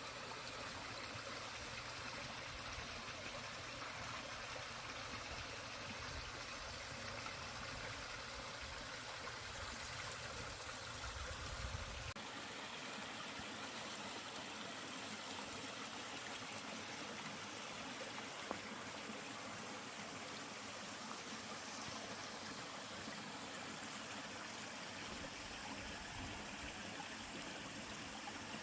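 Small two-tier waterfall in a mountain stream, water pouring and splashing steadily. A low rumble underneath cuts off abruptly partway through.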